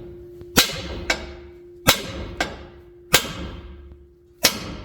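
Sledgehammer blows on a steel ball joint, driving it out of a Chevrolet Colorado's control arm: four heavy metal-on-metal strikes about a second and a quarter apart, each followed by a lighter knock, with a steady ringing note from the struck steel between them.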